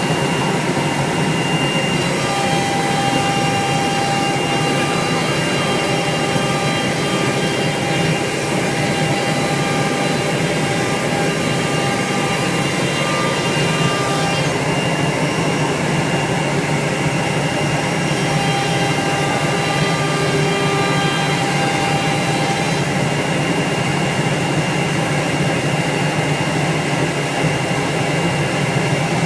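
CNC router spindle running and cutting wood: a steady high whine over a noisy rush, with some of its tones fading in and out as the cut goes on.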